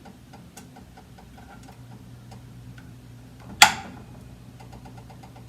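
Faint, rapid, regular ticking with a low steady hum coming in about a third of the way through. About two-thirds in, a single sharp metallic clink rings briefly as the tablespoon strikes the cookware while batter is spooned out.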